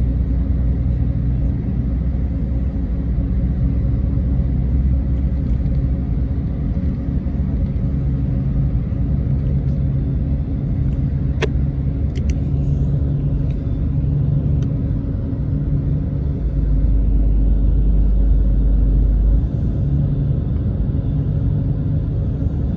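Intercity bus running on the road, heard from inside the passenger cabin: a steady low rumble of engine and road noise, with one sharp click about halfway through.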